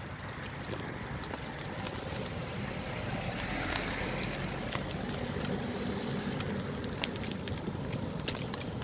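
Bus engine running as the bus drives up and passes close by, its low hum coming in about halfway through, over wind noise on the microphone and a few light clicks.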